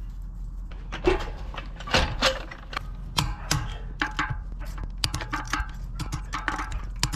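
A run of irregular sharp clicks and knocks, a few a second, over a low steady hum, like small hard objects being handled.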